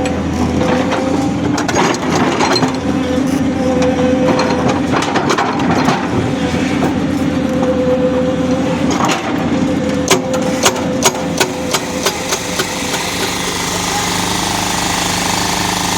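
Construction-site machinery running steadily with a droning engine note. About ten seconds in there is a quick series of sharp metal knocks, and the machine's note changes near the end.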